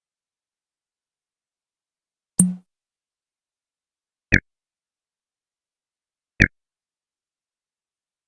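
Three short electronic computer sound effects separated by silence: a brief low blip with a click on top, then two identical sharp, higher clicks about two seconds apart.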